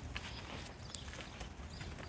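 Footsteps on grass with a steady low rumble and scattered light clicks.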